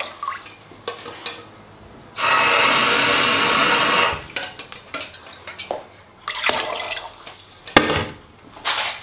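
Water poured from a jug into a stainless steel pressure cooker over soaked beans: one steady pour of about two seconds, with shorter splashes and a sharp knock later on.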